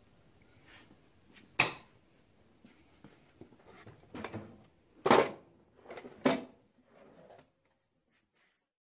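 Pieces of 6061 aluminum bar stock clinking in a wooden tray, and the tray knocking as it is lifted and slid onto a wooden shelf: a few sharp knocks, the loudest about five seconds in.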